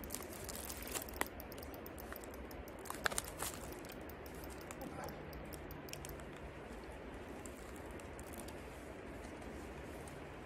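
Light, irregular clicking and ticking from a spinning reel and rod handling as a hooked chub is played, over a steady low background hiss. The clicks come thickest in the first few seconds, with a sharp cluster about three seconds in, then thin out.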